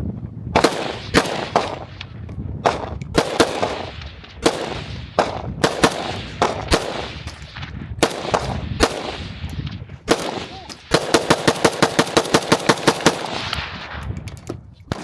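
Gunfire at an outdoor range: single shots of varying loudness going off irregularly, about one every half second to a second, each with a short echo. About eleven seconds in comes a fast, even string of about fifteen shots in two seconds.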